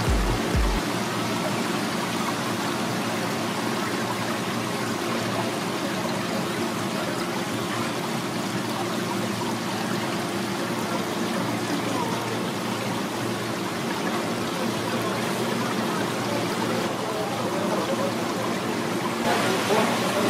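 Steady rush of running, bubbling water in a live seafood tank, with a faint steady hum beneath.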